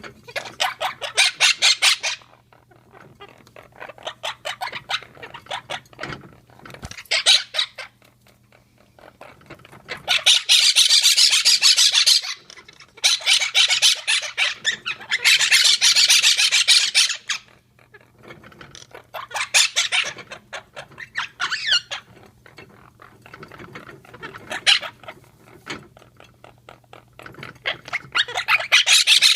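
Quaker parrots (monk parakeets) squawking in loud bouts of rapid repeated calls, the longest and loudest about a third to halfway in, with quieter chatter between bouts. A steady low hum runs underneath.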